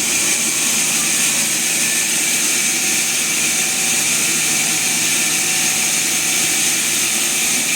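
Sawmill machinery running steadily: a constant high hiss with a low steady hum underneath.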